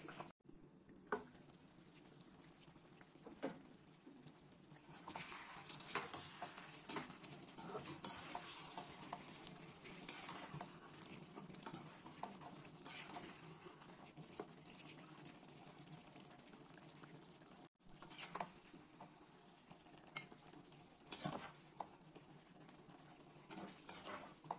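A slotted spatula stirring and scraping stuffed eggplant curry in a pan, with scattered clicks and scrapes against the pan over a soft sizzle of the simmering masala. The stirring is busiest about five to ten seconds in.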